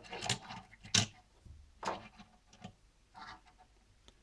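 Die-cast Hot Wheels toy cars being set down and nudged into place on a wooden shelf: a few light, irregular clicks and knocks, the sharpest about a second in, with faint rubbing between.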